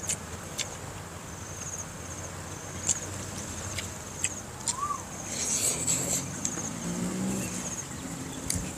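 Insects chirping in short, repeated high trills, with scattered sharp clicks and smacks from eating by hand.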